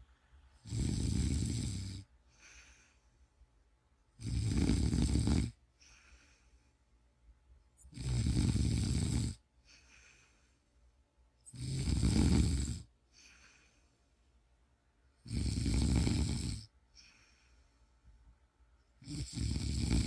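Tuxedo cat snoring: six loud, even snores about every three and a half to four seconds, each lasting just over a second, with a faint breath between them.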